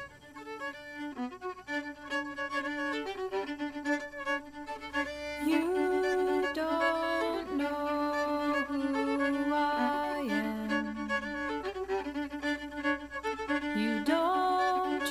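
Instrumental background music: a melodic piece with clearly changing notes that swells noticeably louder about five to six seconds in.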